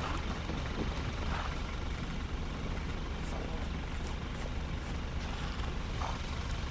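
Strong wind buffeting the microphone: a steady low rumble, with a couple of brief higher calls over it, about a second in and near the end.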